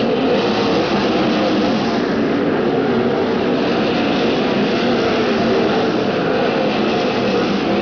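A pack of winged sprint cars racing on a dirt oval, several V8 engines running hard at once in a dense, steady drone whose pitches waver up and down as the cars go through the turns.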